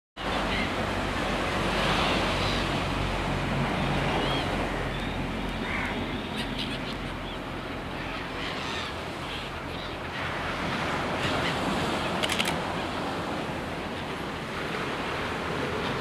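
Surf washing steadily onto a sandy beach, swelling and easing, with a few brief high calls from the seabirds on the shore.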